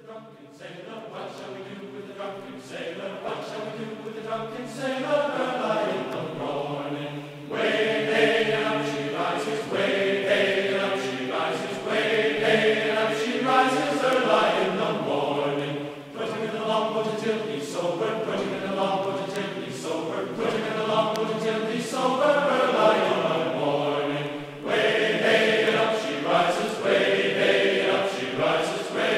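Background music of choral chanting: voices holding long notes in slowly shifting chords, fading in over the first few seconds and moving to new phrases about every eight seconds.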